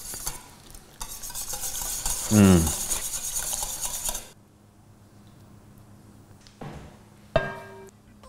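Wire whisk stirring a thick cream sauce in a stainless steel saucepan, scraping and clinking against the pan, for about four seconds. Then it goes quiet apart from a couple of soft knocks near the end.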